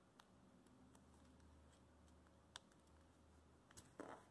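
Near silence, with a few faint clicks and a brief rustle about four seconds in, as a sheet of paper is folded and creased by hand.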